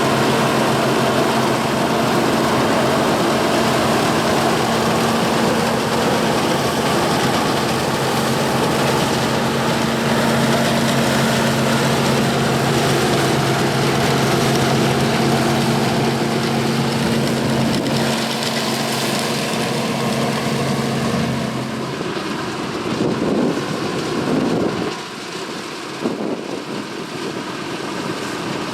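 A 1982 John Deere 4420 combine's 359-cubic-inch six-cylinder diesel running with its harvesting machinery, a loud, steady hum over a dense mechanical whir. About two-thirds of the way through the steady hum drops out, leaving a rougher, uneven noise.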